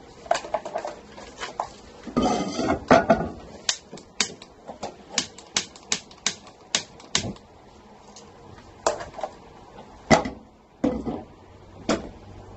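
A brief clatter of cookware on the stove, then a run of sharp clicks at about three a second, followed by a few scattered louder clicks.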